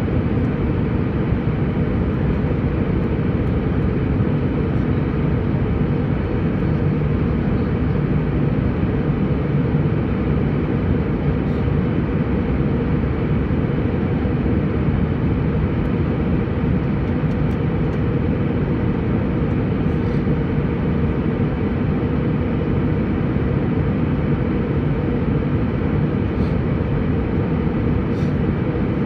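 Steady cabin noise of an airliner in flight, heard from inside the cabin: a constant low rush of engine and airflow.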